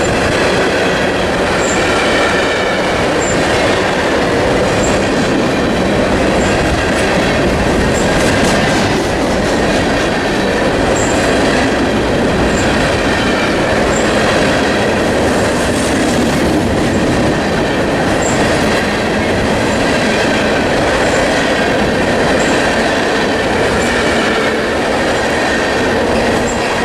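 Freight cars of a ballast train rolling slowly past at close range: a steady, loud rumble of wheels on rail, with clicking over the rail joints and faint high wheel squeal, plus small high chirps about every second or two.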